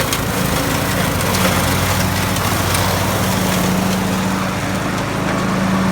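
John Deere riding mower's engine running at a steady pitch while mowing.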